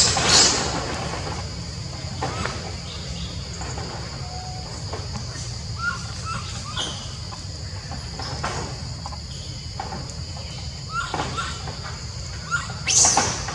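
Insects droning steadily at a high pitch, with a loud shrill squeal just after the start and another near the end, and a few faint short chirps in between.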